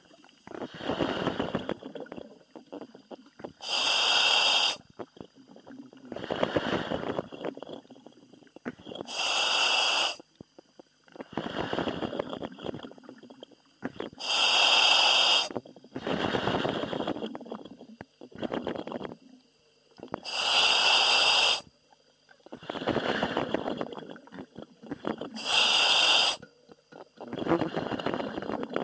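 Commercial diver breathing in a diving helmet, heard over the diver's communication line: a cycle of breaths, a sharp hissing breath alternating with a rougher, lower breath, repeating about every five and a half seconds.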